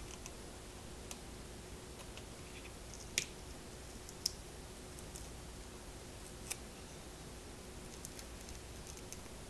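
Thin metal foil shield being peeled off its adhesive from a Leap Motion controller's casing: faint, scattered crinkling clicks, with three sharper crackles a little after three seconds, around four seconds and about six and a half seconds in.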